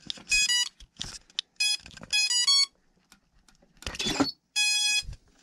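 Brushless motor speed controllers (ESCs) of the electric C-130 model giving their power-up beeps as the 4S battery is connected: several short runs of clean electronic tones, one stepping up in pitch, then a longer single tone near the end, the sign that the controllers have armed. Scattered clicks from the battery plug being handled sound in between.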